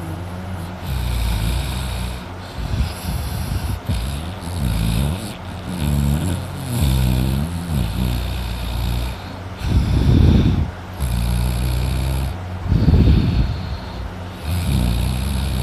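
A man snoring loudly in deep sleep, one long snore every two to three seconds.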